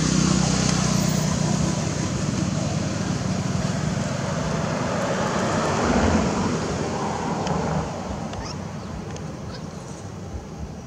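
A motor vehicle's engine running close by: a steady low hum under a rushing noise, which drops away about eight seconds in.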